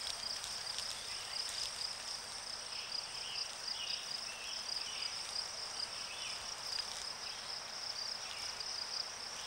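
Insects chirring in a steady, high-pitched pulsing trill. A fainter, lower chirp comes and goes through the middle.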